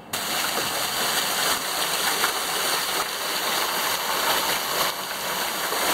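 Steady rushing, splashing water from a deck pool, an even hiss that cuts in abruptly at the start.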